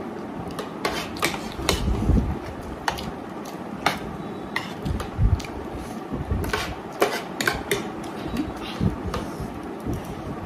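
Spoons and forks clinking and scraping on plates as two people eat noodles quickly: irregular sharp clicks, with a few low thumps.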